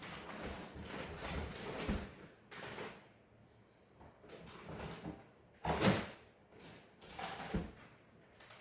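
A cardboard box being opened and packs of meat handled inside it: a run of scraping and rustling, with the loudest scrape about six seconds in.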